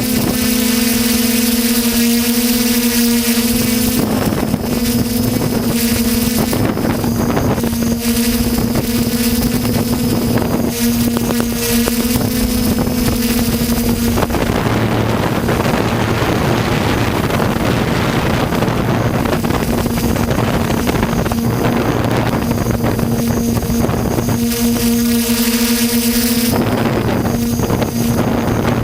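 Skyhero Little 6 hexacopter's six electric motors and propellers droning steadily, heard through the GoPro mounted on it, with a steady hum that weakens and turns noisier for a stretch around the middle before coming back. Wind buffets the microphone.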